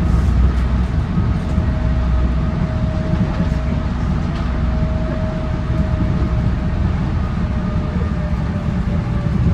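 Busan Metro Line 4 rubber-tyred train running between stations, heard from inside the car: a steady low rumble from the running gear, with a thin steady whine from the drive joining about a second and a half in.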